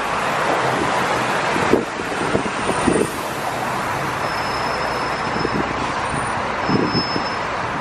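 Road and traffic noise heard from the open top deck of a moving double-decker tour bus: a steady rush with a few dull thumps. A thin high whine comes and goes twice.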